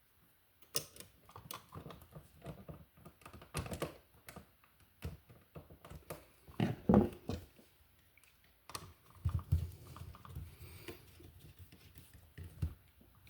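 Irregular small clicks and scrapes of hand tools and copper wire on a wall receptacle, as the white wire is hooked around the receptacle's silver terminal screw, with a few soft handling thumps.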